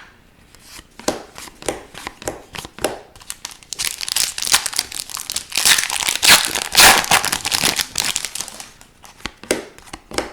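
A foil trading-card pack wrapper crinkling and tearing as it is handled, dense for about five seconds from roughly four seconds in. Light clicks and taps of cards being handled come before and after it.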